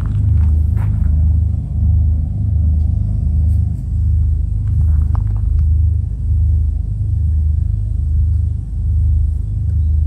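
A loud, low mechanical rumble that throbs evenly and steadily, like an engine or machine running, with a few faint clicks over it.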